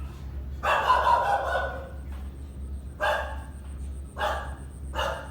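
Dog barking: one drawn-out bark about a second long, then three short barks about a second apart.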